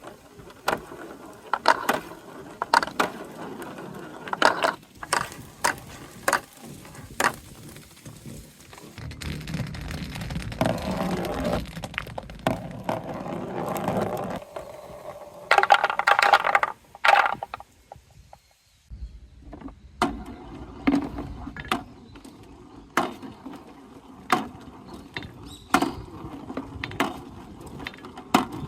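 Large balls rolling through a corrugated transparent hose and knocking along a marble-run course: a string of sharp clacks and clatters, with a longer rumbling roll in the middle and a loud, dense rattle a little past halfway.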